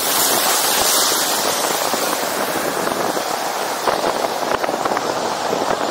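Steady rushing wind noise. From about four seconds in come crackles and low thumps of gusts buffeting the microphone.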